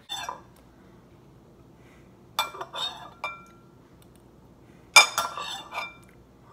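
A metal spoon clinking and scraping against a ceramic bowl in two short bouts a couple of seconds apart, each a few quick clinks that ring briefly.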